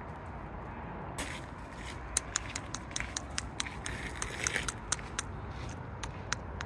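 A run of sharp, irregular clicks, several a second, starting about a second in, over a steady low rumble.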